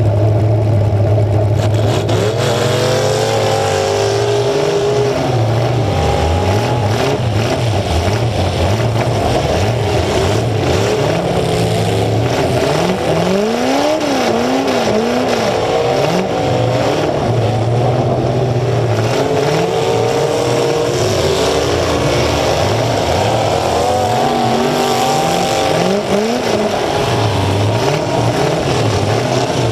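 Demolition derby car's engine running loud through short open exhaust stacks that come straight up through the hood, revving up and down again and again. Other derby cars' engines rev around it.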